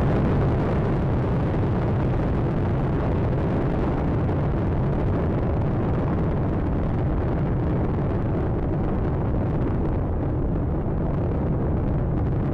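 Space Shuttle Atlantis's solid rocket boosters and main engines firing during ascent: a steady, deep rumbling noise whose higher part thins slightly near the end.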